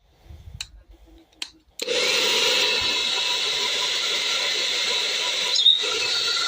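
A couple of clicks, then a handheld hair dryer switched on about two seconds in, its fan motor running steadily with a whining hum over the rush of blown air.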